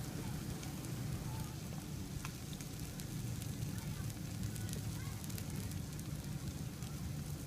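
Grilled tuna, cheese and fried baloney sandwich sizzling on a BBQ grill: a steady hiss with many fine crackles over a low, even rumble.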